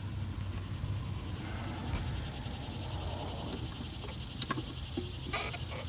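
A few short, sharp metallic clicks of a wrench working the blade bolt on a push mower as it is tightened, the loudest about four and a half seconds in and a small cluster near the end, over a steady low hum.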